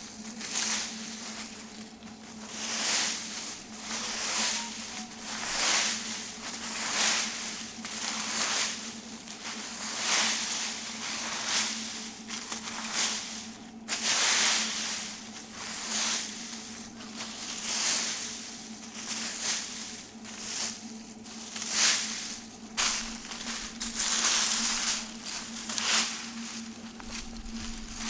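A rake scraping through dry fallen leaves on grass, in a steady series of pulls roughly one a second, each stroke a rustling swish.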